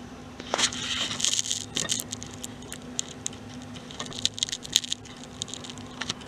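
Layers of a plastic 7×7 Rubik's cube being turned by hand: a scraping rattle of quick turns from about half a second in, then scattered light clicks as further layers snap into place.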